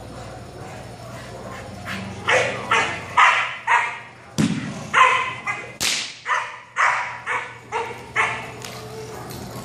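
A 7-month-old Belgian Malinois puppy barking at a decoy in protection training: a run of about thirteen sharp barks, roughly two a second, starting about two seconds in and stopping shortly before the end.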